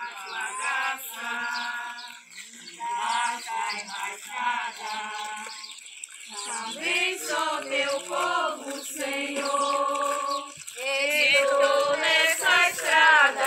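A group of people singing a hymn together without instruments, in phrases of long held notes with brief pauses between them.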